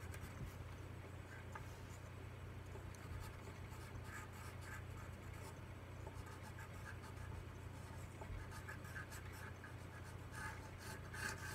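Pencil shading on paper: faint, scratchy short strokes over a steady low hum.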